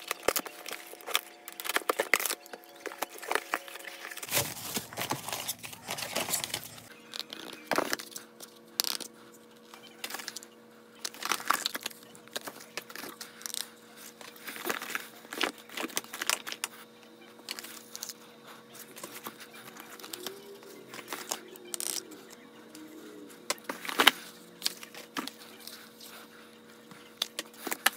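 Packing tape being peeled off a cardboard box, then the box flaps, plastic wrap and small cardboard product boxes being handled: a long run of irregular crinkles, rustles and light taps, over a faint steady hum.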